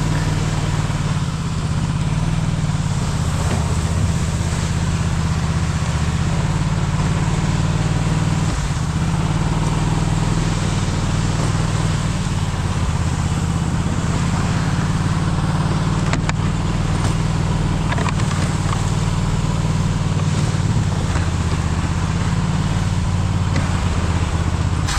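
Buran snowmobile's two-stroke engine running steadily under way: a steady low engine note under a loud, even hiss.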